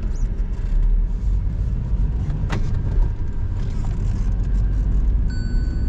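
Swaraj 733 FE tractor's three-cylinder diesel engine running steadily as the tractor drives along the road, with one sharp click about two and a half seconds in.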